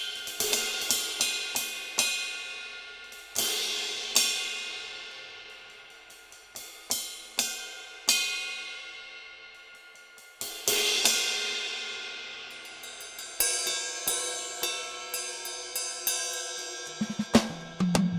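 2Box Drumit 5 MKII electronic drum kit playing cymbal sounds: a series of crash hits, each left to ring and fade, with lighter, quicker cymbal taps between them. Low drum hits come back in near the end.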